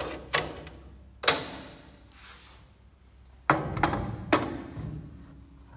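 Hand-handling knocks on a jointer planer: a wooden board knocked against the table and fence, and the metal fence shifted by hand, giving a handful of separate clunks. A sharp one just over a second in has a brief metallic ring, and a heavier thump with a short low rumble comes about three and a half seconds in.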